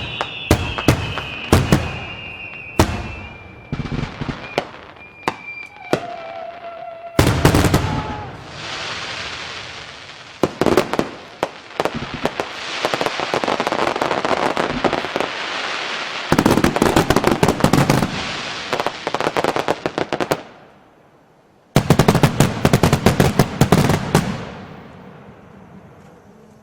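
Fireworks going off: rapid bangs and dense crackling salvos, with whistling rockets in the first few seconds. After a brief lull about three-quarters through comes a final loud barrage of bangs that fades out.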